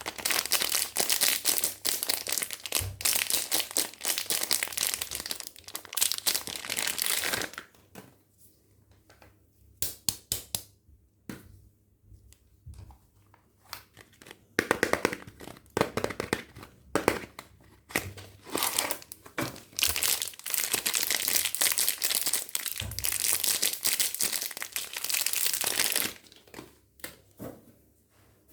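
Soap packaging being crinkled and torn open by hand: two long stretches of dense crinkling near the start and about two-thirds of the way through, with scattered rustles and small clicks in between.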